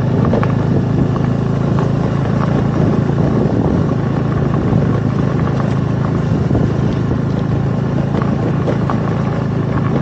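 A motor scooter being ridden steadily along a rough country road. The engine hum runs under dense, steady wind and road noise.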